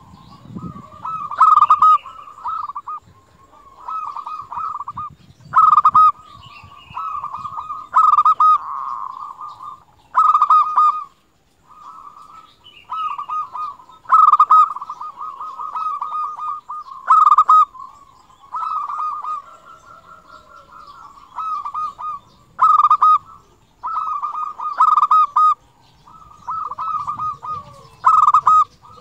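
Zebra dove (perkutut) cooing: its rapid, stuttering coos come phrase after phrase, every second or two with short gaps between.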